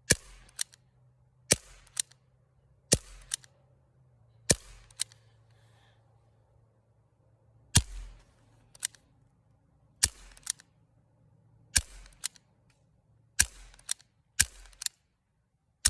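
Barra 1858 CO2 BB revolver firing a string of about nine sharp shots, one every one to three seconds, each followed a fraction of a second later by a fainter click.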